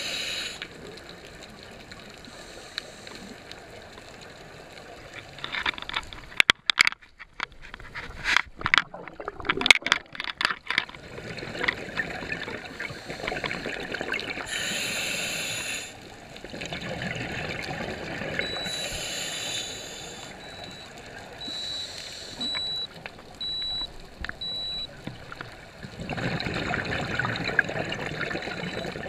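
Underwater sound through a camera housing: scuba regulator exhaust bubbles rising in surges every few seconds. A run of sharp clicks and knocks comes about a quarter of the way in.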